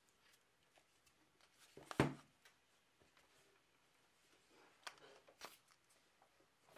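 Light handling noise from a small radio transceiver and a plastic single-serve coffee pod being held against its case: one sharp knock about two seconds in, then a few soft clicks and taps later on.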